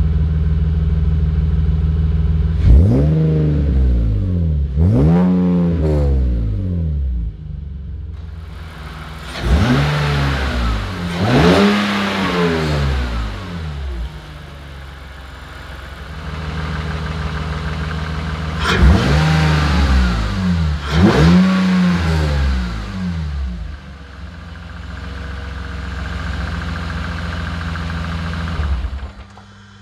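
BMW Z3's M52TU 2.5-litre inline-six, breathing through a K&N Apollo cone-filter intake with a ram-air duct, idling steadily and revved in three pairs of quick blips, each rising and falling back to idle. It stops just before the end.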